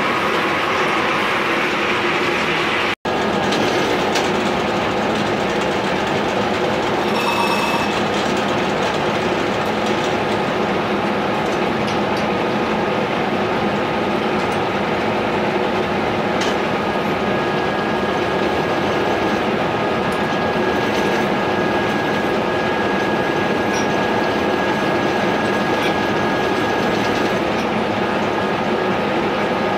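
Horizontal milling machine running: a steady mechanical rattle and hum from its drive, gears and arbor-mounted cutter. It cuts out for an instant about three seconds in, and a thin steady whine joins for about ten seconds past the middle.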